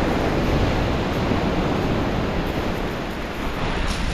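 Surf breaking and washing up a shingle beach, swelling right at the start, with wind buffeting the microphone.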